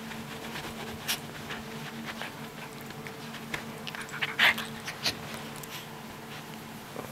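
Maltese dog panting and breathing hard as it wrestles with a hand on a blanket, with scattered rustles and scuffs and one louder sharp noise about four and a half seconds in. A steady faint hum runs underneath.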